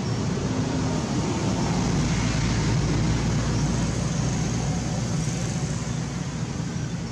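Steady low motor rumble like passing road traffic, swelling a little in the middle and easing off toward the end.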